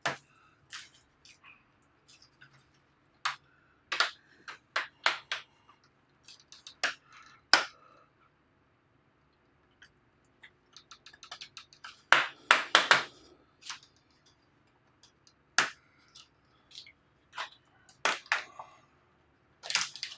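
Plastic clips of a Dell Inspiron 7559 laptop's screen bezel cracking and popping loose as the faceplate is pried off with a pick. The sharp cracks come singly, with a quick run of them about twelve seconds in. The cracking is normal for this fragile plastic case and is not a sign of damage.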